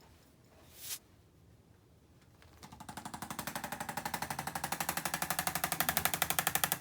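Handheld electric percussion instrument firing a rapid, even train of taps, about a dozen a second, starting a few seconds in and growing stronger.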